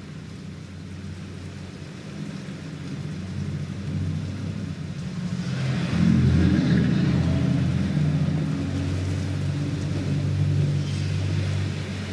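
Two cars driving past on a rain-soaked street, the engine rumble building to a peak about halfway through as the first passes. Tyres hiss through the wet road at each pass, the second near the end.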